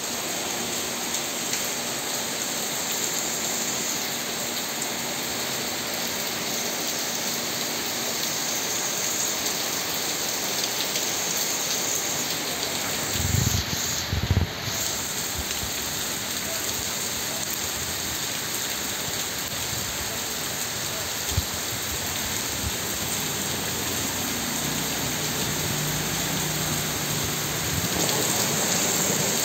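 Heavy rain pouring steadily, with a few low thumps about halfway through.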